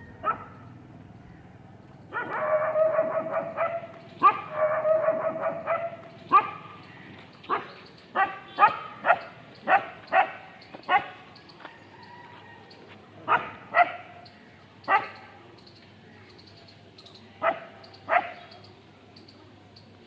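Dog barking: two long runs of rapid barks about two and four seconds in, then a dozen or so single barks, spaced out and coming in pairs and threes.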